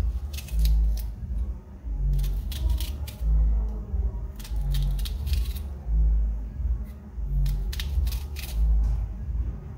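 Background music with a heavy bass beat, about one beat a second, and sharp percussive ticks above it.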